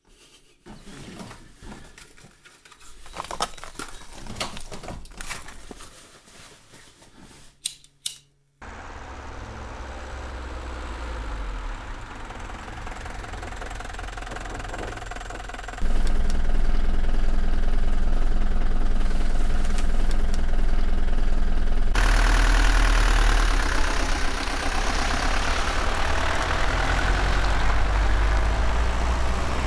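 Scattered clicks and short rattles, then a delivery van's engine running steadily as it drives along the road. The engine sound starts abruptly about a third of the way in, gets louder about halfway through, and has more hiss over it in the last part.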